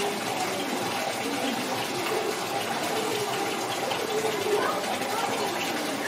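Steady rush of water running into a shallow enclosure pool.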